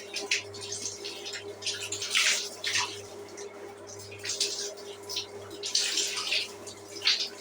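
Water splashing and pouring in a shower in irregular bursts, over a steady low hum.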